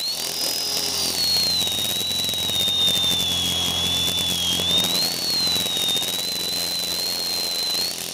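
Single-rotor FPV drone's brushless motor whining in flight, heard from on board: one high tone whose pitch dips right at the start, sags through the middle and rises again a little after halfway. Under it is a steady rush of air.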